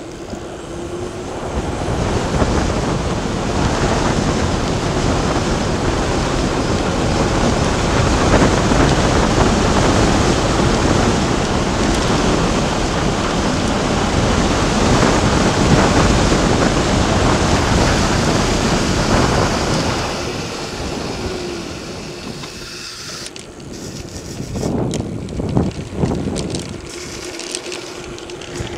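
Wind rushing over the camera microphone as a mountain bike descends a paved road at speed. The noise is loud and steady, eases after about twenty seconds, and comes back in a few short gusts near the end.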